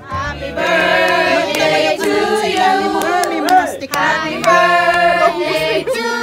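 A small group of people singing together, children's voices among them.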